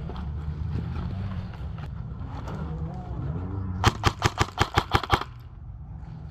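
Airsoft rifle firing a rapid burst of about ten evenly spaced shots in just over a second, with low wind and handling rumble on the helmet camera before it.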